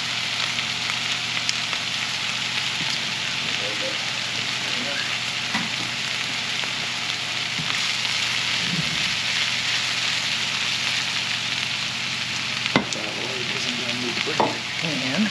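Sausage, mushrooms, onions and peppers sizzling steadily in a frying pan, stirred now and then with a wooden spoon. A sharp knock sounds near the end.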